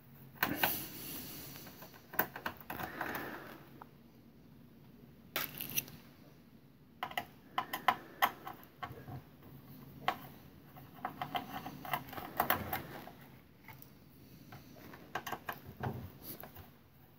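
Hands unfastening and handling the power-supply board inside an opened DVD player's metal chassis: scattered clicks, clatters and scrapes of plastic and metal, coming in several short bursts.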